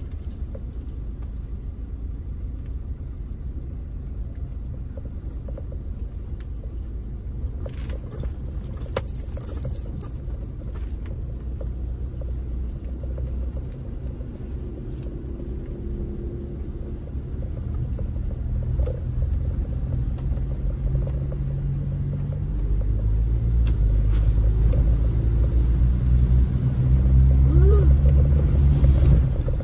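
Car engine and road rumble heard from inside the cabin while driving, a steady low rumble that gets louder about two-thirds of the way through.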